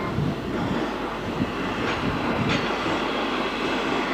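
Steam locomotive working slowly under steam, its exhaust and running noise steady, with two short sharp sounds about halfway through.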